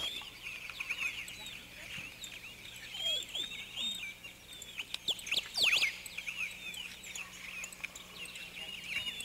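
A chorus of small birds chirping and calling, with many short high chirps overlapping throughout and a louder flurry of calls about five to six seconds in.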